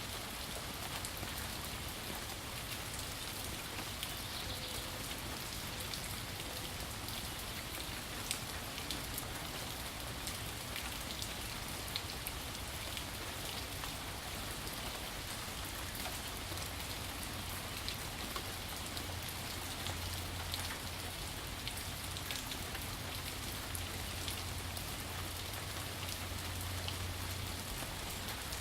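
Steady rainfall, an even hiss with many separate drops ticking on a surface.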